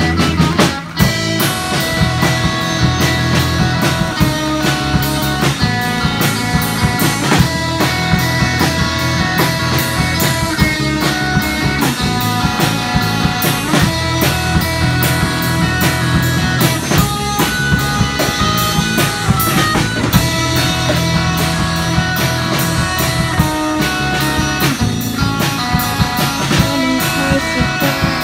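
Amateur rock band playing live through small practice amps: electric guitar, electric bass and a drum kit keeping a steady beat, with a brief break about a second in.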